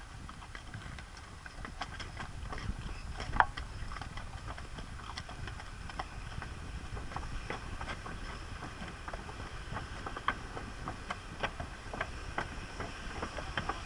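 Horses' hooves clopping in an uneven walking rhythm, first on rock and then on the wooden planks of a footbridge: a string of sharp knocks over a low steady rumble.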